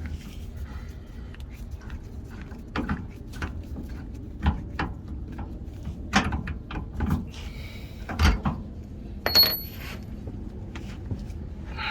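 Irregular metal clanks and knocks as the old front strut assembly is worked loose and pulled out of the truck's suspension. The louder ones come about 4.5, 6 and 8 s in, and a sharp clank about 9.5 s in rings briefly.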